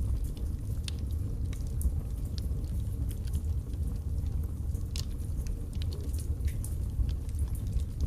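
Wood fire burning in a fireplace: a steady low rumble of flame with scattered sharp crackles and pops from the burning logs, the strongest about five seconds in.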